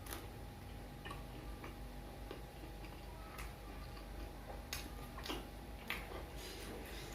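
Chewing of crisp fried snacks (gorengan): scattered crunches and wet mouth clicks at irregular intervals, coming closer together in the last couple of seconds, over a faint steady hum.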